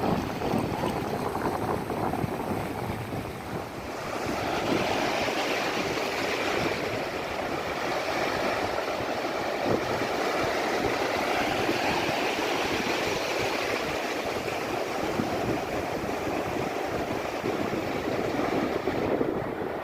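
Sea waves breaking and washing up a beach as a continuous surge of surf, swelling fuller about four seconds in.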